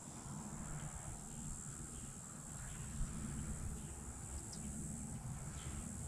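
Steady high-pitched insect buzzing from the marsh, with a low rumble under it, like wind or handling on the microphone.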